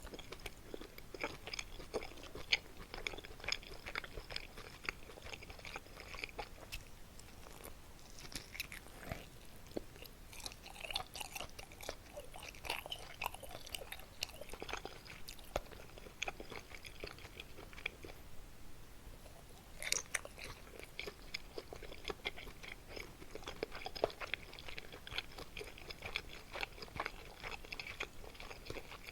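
Close-miked chewing of kimchi and meat dumplings: continuous, irregular wet mouth clicks and smacks. The eating pauses briefly about two-thirds of the way through and resumes with a louder bite.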